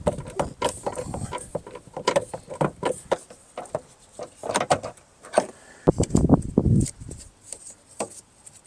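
Plastic interior door trim on a truck door being handled and pressed into place: a run of irregular clicks, taps and knocks, with a heavier dull thump about six seconds in.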